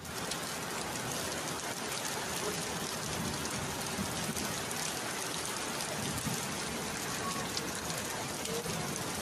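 Heavy tropical downpour: a steady, dense hiss of rain pouring down.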